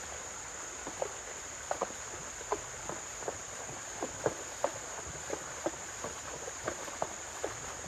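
Horse walking through a shallow creek, its hooves splashing and sloshing in the water in irregular steps, over a steady high-pitched drone of insects.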